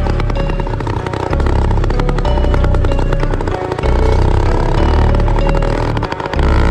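Engine of a rebuilt chopper motorcycle running under way as it is ridden, a fast steady firing that eases off briefly twice.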